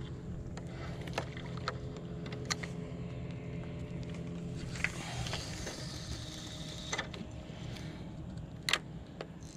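Scattered clicks and taps of a spinning rod and reel being handled, over a steady low engine-like hum. A brief rush of noise comes about halfway through, and a sharper click near the end.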